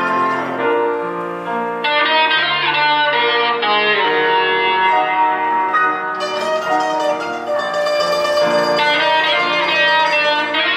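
Acoustic quartet of guitar, mandolin, piano and clarinet playing a melody in long held notes over plucked guitar.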